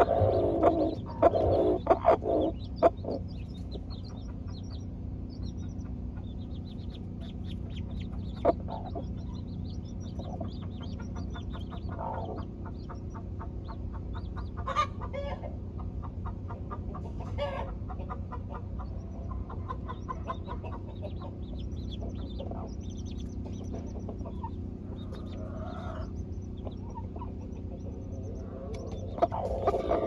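Broody hens clucking among their newly hatched chicks, a quick run of loud clucks in the first few seconds and then only the odd cluck, over the constant high peeping of the chicks. A steady low hum runs underneath.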